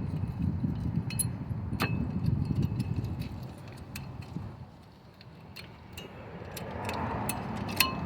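Light metallic clicks and clinks of brake pad hardware clips being pried off and pressed into the caliper bracket, with a sharp click about two seconds in and another near the end. A low rumble sits under the clicks for the first three seconds.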